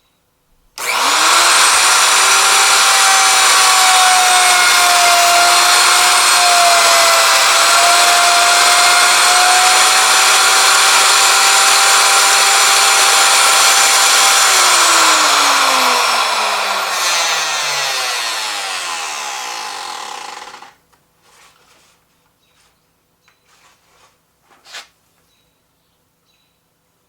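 Electric router switched on and running at full speed with a steady high whine for about fourteen seconds, then switched off and spinning down, its pitch falling for several seconds before it stops. A few faint knocks follow.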